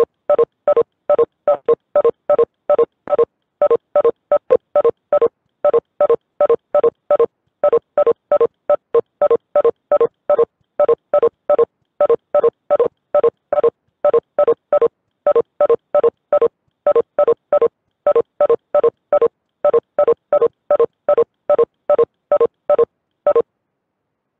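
Cisco Webex Meetings participant-leave tone sounding over and over, one short beep for each attendee leaving the meeting, in a quick, uneven string of about two to three beeps a second that stops shortly before the end.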